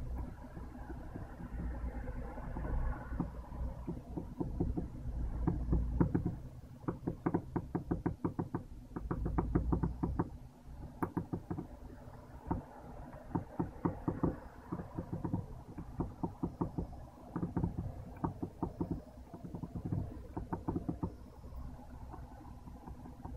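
MGN15 linear guide carriage being slid back and forth by hand along a short steel rail, giving repeated runs of rapid clicking with a low rumble of handling noise between them. This is the carriage that binds when moved in one direction.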